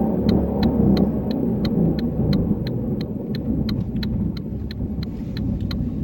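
Car driving with a low droning rumble: an unwanted drone that appeared after new tie rods, wheel bearings, axles, struts, strut mounts and lowering springs were fitted. A sharp regular ticking, about three to four a second, runs over it.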